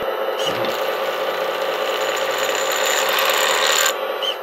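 Hydraulic pump of a 1/14-scale RC hydraulic wheeled excavator running with a steady mechanical buzz, cutting off sharply about four seconds in, with a short burst just after.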